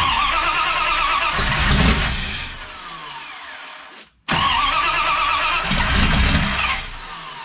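5.9 Magnum (360) V8 on Holley Terminator X fuel injection, running loud through custom headers and exhaust. It starts suddenly, is blipped once, then sags and stumbles. About four seconds in the sound cuts out for a moment, then it runs again, takes another blip and sags again, which the owner puts down to the engine flooding itself on too much fuel in the tune.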